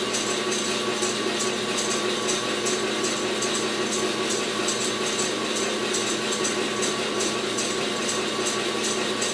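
Electric mixer running steadily at an even speed as it whips heavy cream into chantilly, with a light regular ticking over its hum.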